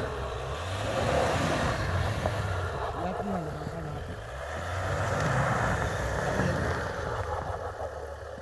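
Pickup truck engine revving in two surges as the truck pushes through deep snow, with the hiss of tyres churning snow over it.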